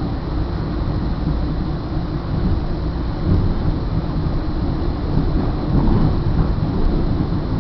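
Steady low rumble of a Northstar commuter train in motion, heard from inside the passenger coach: wheels on the rails and the car body running along.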